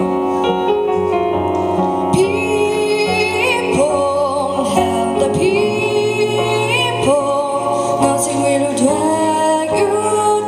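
A woman singing into a microphone over instrumental accompaniment, holding long notes with vibrato.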